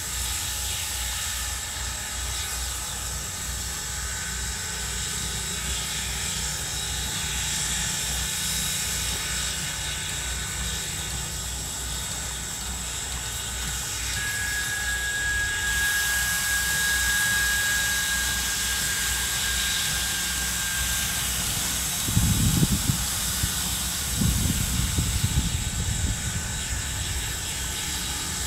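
Norfolk and Western No. 475, a 4-8-0 steam locomotive, standing with steam hissing steadily over a low rumble. A thin, steady high tone sounds for several seconds in the middle, and near the end come a couple of louder low rumbling gusts.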